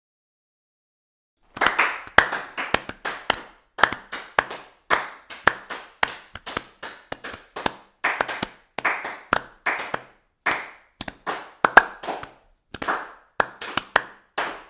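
Hand claps, sharp and separate, coming at an uneven pace of about two to three a second, starting about a second and a half in.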